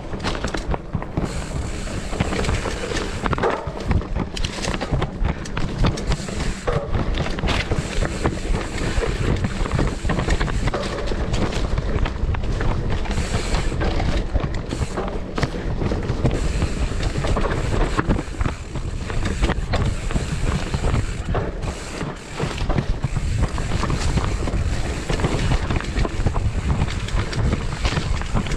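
Mountain bike rattling and clattering over a rough trail, with tyres on dirt and rock and many small knocks, and heavy wind rumble on the microphone.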